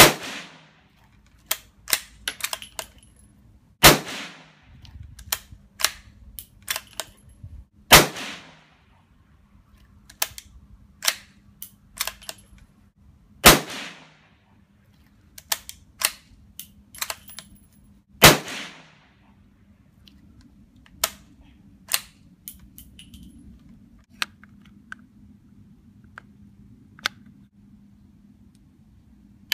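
Five shots from a Sako Quad Range .22 rimfire bolt-action rifle, about four to five seconds apart, each sharp crack trailing off with a short echo. Lighter metallic clicks and clacks of the bolt being worked come between the shots and go on sparsely after the last one.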